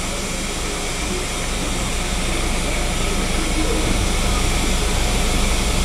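Busy street-market ambience: a continuous rushing hiss and low rumble, with faint voices in the background.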